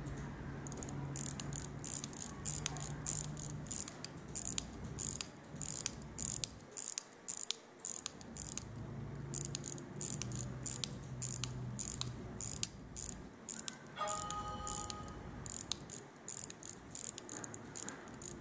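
Serkisof 18-jewel pocket watch being wound at the crown: the ratchet wheel and click make a run of sharp clicks with each turn, in repeated short bursts about two a second.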